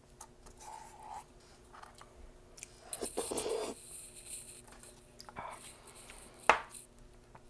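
Plastic spoon scooping and scraping ice cream in a McFlurry cup, with scattered small clicks and a scraping rasp about three seconds in. A single loud sharp click comes near the end.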